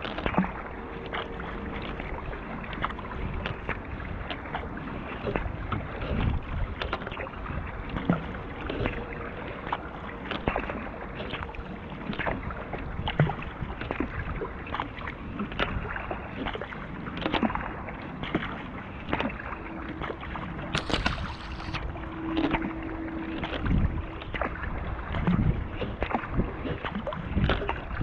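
Kayak being paddled: paddle blades dipping and splashing, with water rushing along the hull and irregular drips and splashes throughout.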